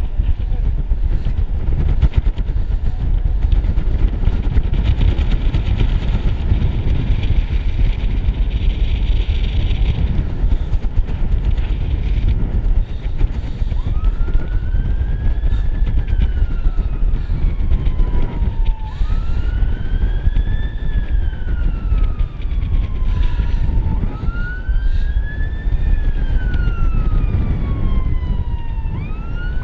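Wind rumbling steadily on the microphone. About halfway through, an emergency-vehicle siren starts up from the street far below in wail mode: three slow cycles, each rising quickly and falling off slowly. Right at the end it switches to a fast yelp.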